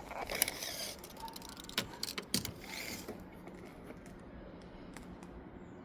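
Tools being handled on a window-screen frame: a handful of sharp metallic clicks and short rattles in the first three seconds, then only an occasional tick.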